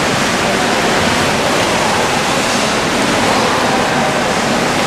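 Steady rushing noise of an indoor swimming pool hall, an even wash of water-like sound with no breaks.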